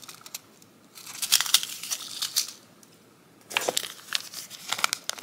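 Small clear plastic packets of nail charms crinkling as they are handled, in two bursts of crackling with a short pause between.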